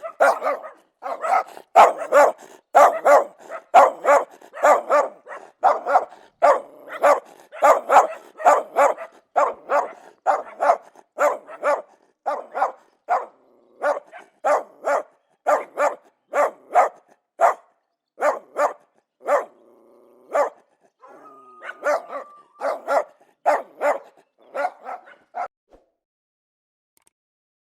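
A dog barking aggressively in a fast, steady run of about two barks a second. There is a short break with a drawn-out whine about three-quarters of the way through. The barking stops shortly before the end.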